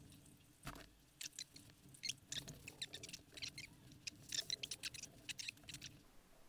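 Quick, irregular light taps of typing on a smartphone's touchscreen keyboard, in bursts, with a soft bump just under a second in over a faint low hum that stops near the end.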